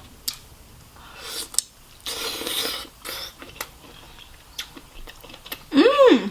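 Close-up eating of a seafood boil: wet bites, chewing and mouth noises, with a longer noisy stretch in the middle. Near the end comes a short vocal sound that rises and then falls in pitch.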